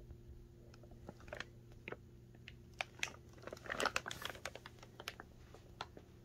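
Clear plastic bag wrapping around a cylinder head crinkling as it is handled, in scattered light crackles with a denser burst about four seconds in.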